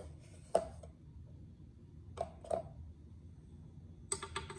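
A plastic measuring spoon clicking and tapping against containers as baking powder is spooned into a stainless steel mixer bowl. There is a single knock about half a second in, two lighter clicks about two seconds in, and a quick run of taps near the end.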